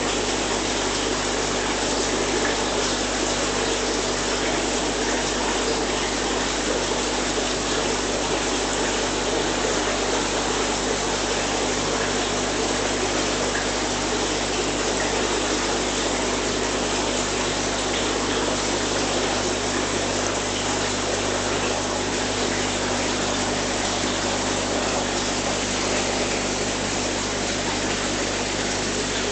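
Aquarium filtration running: a steady rush of moving water with an even low pump hum beneath it.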